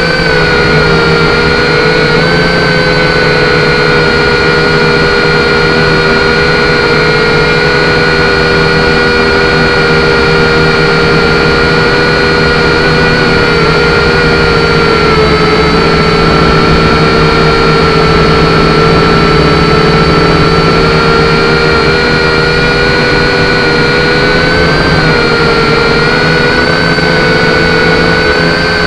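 Syma X5C-1 quadcopter's four small brushed motors and propellers whining steadily in flight, heard close-up through its onboard camera. The pitch sags a little about two seconds in and rises briefly near the end as the throttle shifts.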